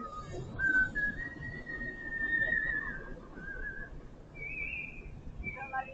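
A man whistling a melody by mouth: long held notes that slide in pitch, one rising higher about four and a half seconds in.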